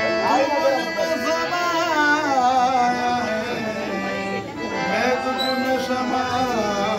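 Urdu devotional song: a wavering melodic vocal line drawn out between about two and three seconds in, over steady held notes of instrumental accompaniment.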